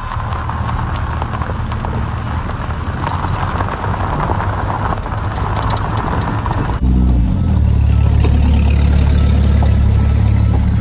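A vehicle engine running steadily. About seven seconds in the sound changes abruptly to a louder, deeper engine drone.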